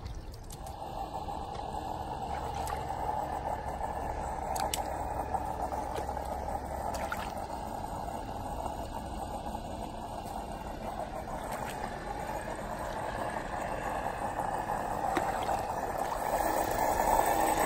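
Water running and pouring steadily, getting slightly louder near the end.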